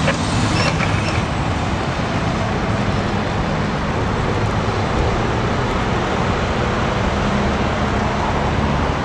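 Fire engine's diesel engine running steadily as the truck drives past, a low hum under a steady wash of road noise.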